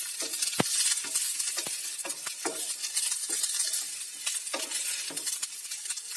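Cut okra sizzling in oil in a non-stick frying pan while a spatula stirs it, scraping and tapping the pan at irregular moments over a steady high hiss.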